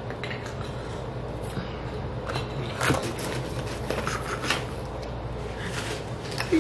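Handling noises: a scatter of short clicks and scrapes as objects are moved about, over a steady low hum.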